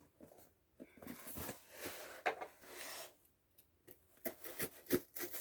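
Handling noise from a boxed book set being turned and held: soft rustling with scattered light taps and clicks.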